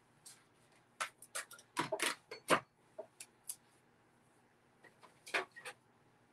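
Irregular clicks, taps and knocks of craft supplies being handled as a piece of card is readied for an embossing folder, coming in small clusters with the loudest about two and a half seconds in.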